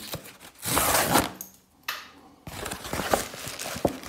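Cardboard box being handled and opened by hand: its flaps scrape and rustle in a rush about half a second in, a sharp click follows, then scratchy crackling of the cardboard.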